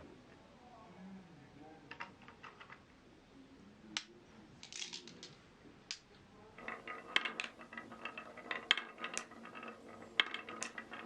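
Marbles rolling and clacking down a wooden marble run: scattered single clicks at first, then from a little past halfway a dense, rattling clatter of many marbles knocking along the wooden track.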